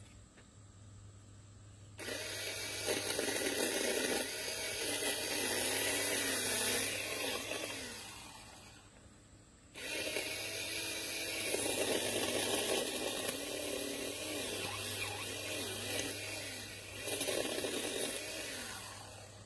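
Cordless electric pole saw running in two long spells, its chain cutting through small branches, the motor pitch wavering as it takes load. It starts about two seconds in, stops for about a second near the middle, then runs again until just before the end.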